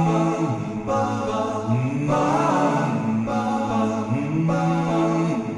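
Background music: the instrumental introduction of a slow song, with held pitched notes and a sustained tone, before the vocals come in.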